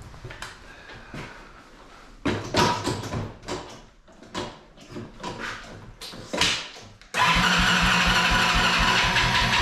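Honda TRX90 ATV's small single-cylinder four-stroke engine being cranked in a series of short, uneven attempts, then catching about seven seconds in and settling into a steady idle.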